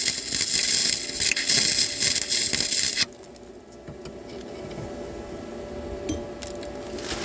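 Flux-core (gasless) MIG welding arc crackling for about three seconds, then cutting off suddenly, leaving only a faint steady hum from the welder. The welder judges the bead a poor one and wants more wire feed.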